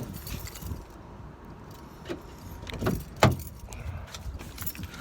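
Hand pushing and wiggling the large gray square relays in a 2007 Mercury Montego's fuse box, reseating a suspect starter relay for a no-crank, no-click fault: scattered plastic clicks and knocks with handling rustle, the sharpest knock a little over three seconds in.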